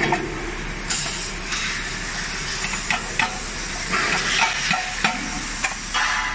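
Sheet-metal fire damper parts clicking and clinking as they are handled and fastened by hand, a few sharp clicks over a steady hiss.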